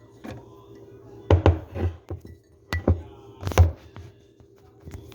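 A handful of sharp knocks and clinks as a kitchen bowl and utensils are handled and set down on a counter, about five in all, in the first few seconds.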